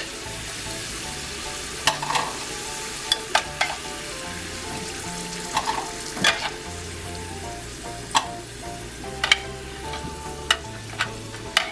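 Potato fries deep-frying in hot oil, a steady sizzle, with sharp clicks and knocks of a utensil against the pan every second or two.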